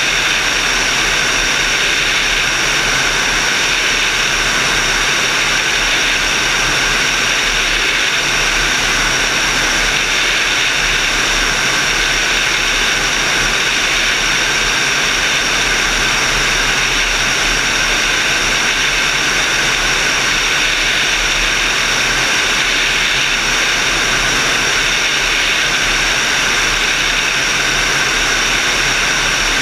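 Steady rush of air in flight over a camera mounted on a glider's wing, with a few constant high whistling tones in the airflow noise and a low hum underneath.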